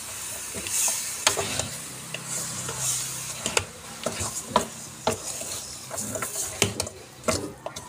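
Metal ladle stirring and scraping pork ribs in curry paste around an aluminium pot, with irregular sharp clinks against the pot's wall. A light sizzle of the meat frying runs underneath.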